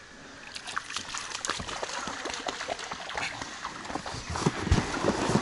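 An inflatable boat being pushed off a muddy bank into shallow water: irregular scraping and knocking of the hull with splashing and squelching, growing louder toward the end.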